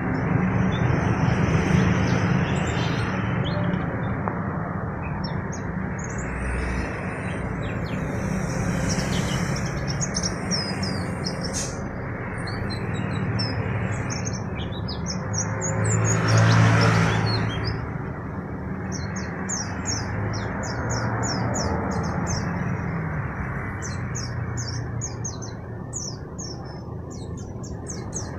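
Wild-caught, untrained white-eyes (pleci bahan) giving quick, high, overlapping chirps and twitters. Underneath is a steady, loud, low rushing noise that swells for a moment a little past halfway.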